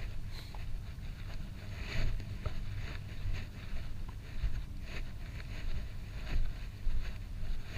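Wind rumbling on the microphone, swelling and dropping unevenly, with scattered light rustling.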